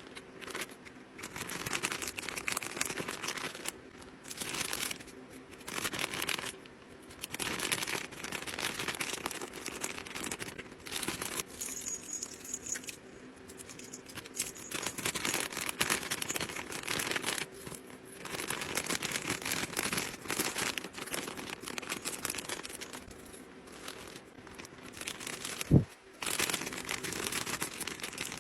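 Packaging crinkling in irregular bursts as items are unwrapped and handled, with one sharp thump near the end.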